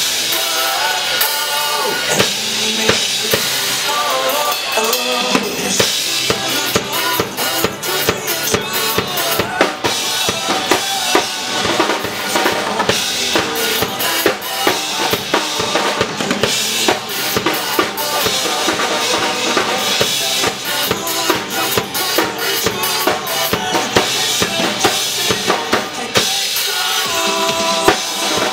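Acoustic drum kit with clear acrylic shells played hard: fast kick, snare and cymbal strokes over a pop-rock backing track with other instruments.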